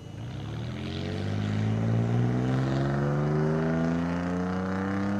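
A road vehicle's engine approaching and accelerating, its note rising steadily in pitch and growing louder over the first two seconds, then holding loud.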